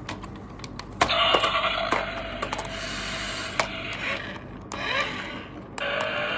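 Small electric motor of a toy remote-control Bugatti car whirring as the remote is worked. It starts about a second in and runs in three stretches, with two short breaks near the end, along with a few light clicks.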